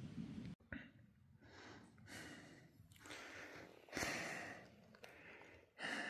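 A person breathing close to the microphone: about six soft breaths, each lasting about half a second.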